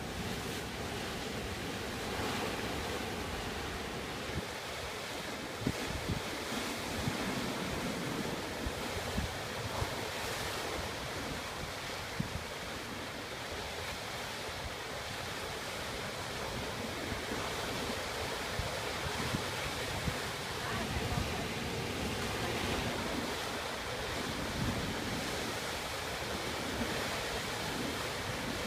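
Sea waves washing and breaking in a continuous surf, with wind buffeting the microphone in many short thumps.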